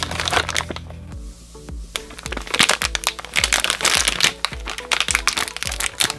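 Background music with a steady beat, with dense crinkling and crackling over it, thickest from about two seconds in.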